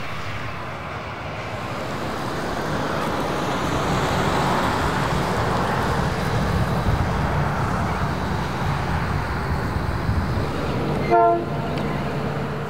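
Victorian Railways T-class diesel-electric locomotives running with a steady, low engine rumble that swells a little in the middle. Near the end comes one short locomotive horn toot.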